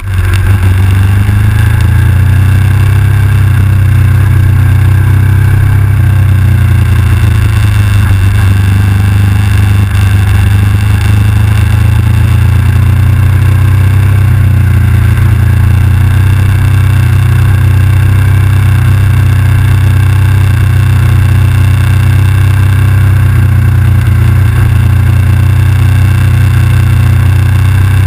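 KTM 990 SMR's V-twin engine running steadily under the rider at a cruising pace, loud and close to the camera, with little change in pitch.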